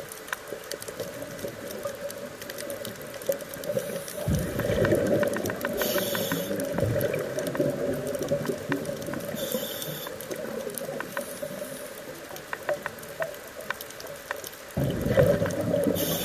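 A scuba diver's regulator breathing, heard underwater: long bubbly exhalations about four seconds in and again near the end, with short hissing inhalations between them. Scattered sharp clicks run throughout.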